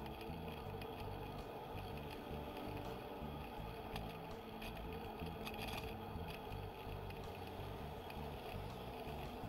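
Mountain bike ride: steady wind and tyre noise with choppy low rumble and a few light rattles.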